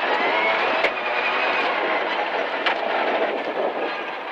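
Ford Fiesta R2T rally car's turbocharged three-cylinder engine running hard under load, heard inside the cabin, its note climbing in the first second. Two sharp knocks cut through, about a second in and again near the middle.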